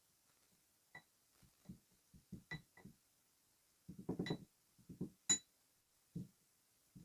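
Kinetic sand being cut and squished: soft, irregular crunches and thuds, bunched densely about four seconds in, with a few sharp clicks, the loudest about five seconds in.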